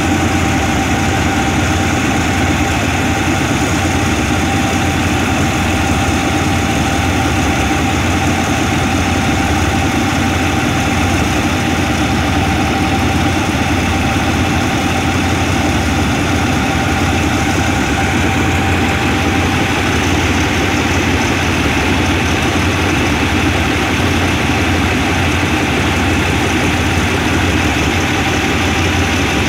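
GEK-class diesel-electric locomotive standing and idling steadily, with a thin steady whine over the engine.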